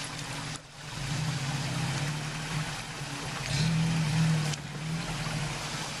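1993 Toyota 4Runner's engine running at low speed as the truck crawls over rocks in a creek bed. The revs rise twice, about a second in and again about two-thirds through.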